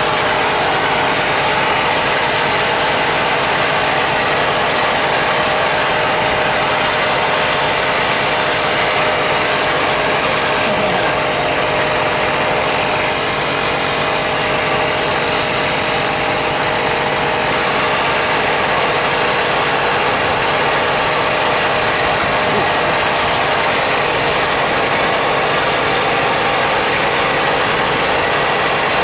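Steady, unchanging machine noise with a faint constant hum running through it.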